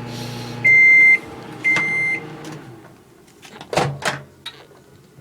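Microwave oven running with a steady hum that cuts off as the timer ends, then two loud beeps about a second apart signalling the end of the cooking cycle. A couple of sharp knocks follow a little later.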